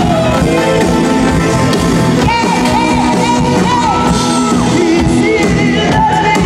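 Live pop band music with a woman singing a melody into a microphone, and shouts and cheers from the crowd.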